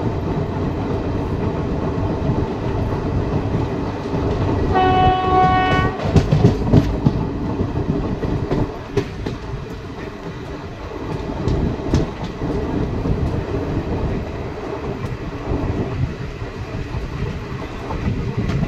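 Garib Rath Express coach running along the track, heard at its open door: a steady rumble of wheels on rail with scattered clicks over rail joints. About five seconds in, a train horn sounds once for a little over a second.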